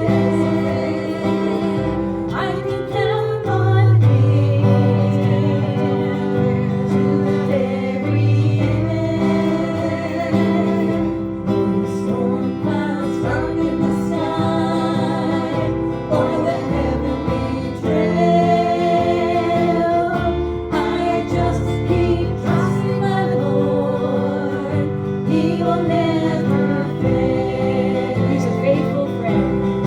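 Gospel song sung with guitar accompaniment, the singing held on long notes.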